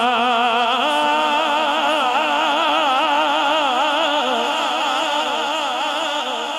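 A man's solo voice singing a naat: long held notes with a wide, wavering vibrato and no words, stepping up in pitch about a second in.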